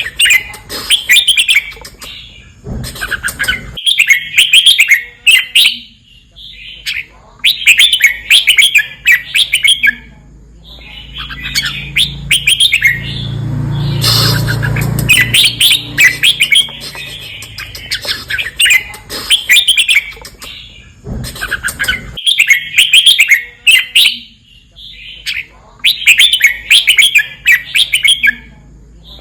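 Red-whiskered bulbul singing: bright, quick whistled phrases of a second or two, repeated again and again with short pauses between them. A low rumble swells and fades under the song around the middle.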